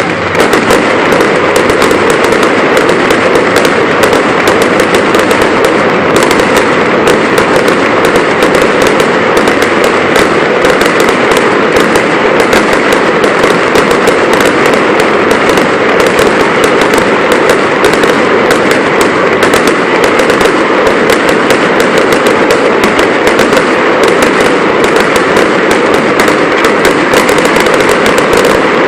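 Fireworks crackling and popping in a dense, rapid, unbroken barrage, starting and stopping abruptly.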